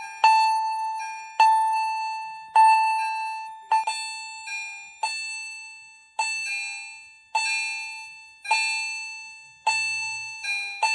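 Fire alarm chime strobes sounding in general alarm after a pull station activation. A struck chime tone repeats about once a second, each strike ringing and fading, with a few weaker strikes from a second chime falling out of step.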